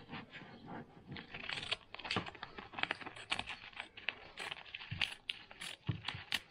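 Scissors snipping through a paper-backed vinyl decal sheet, with the sheet crinkling as it is handled: a string of short, irregular snips and clicks.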